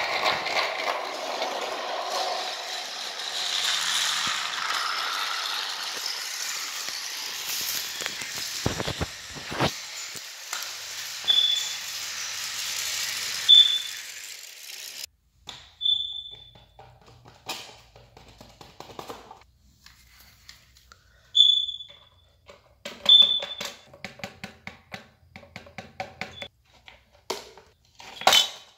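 Toy trains and plastic track being handled: a steady whirring and rattling for about the first half, then scattered plastic clicks and knocks, with several short high squeaks.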